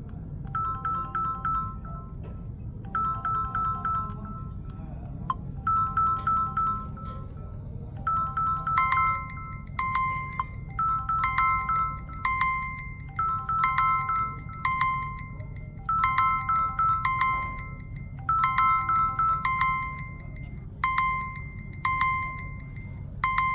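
Smartphone ringtones and alarm tones sounding at once: a repeating melodic chime pattern, joined about nine seconds in by a second, higher repeating beep tone, over a steady low hum.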